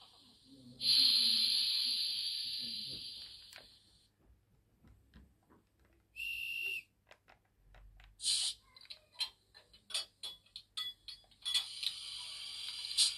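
Sound decoder of an H0-scale ČSD class 350 electric locomotive model playing its standing sounds through the model's small speaker. A loud hiss starts about a second in and fades over a few seconds. A short high tone follows, then a run of sharp clicks, and a steady hiss sets in near the end.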